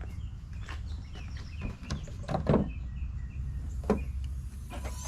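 A few clunks and clicks from a car's door or hood latch being worked, over a steady low rumble.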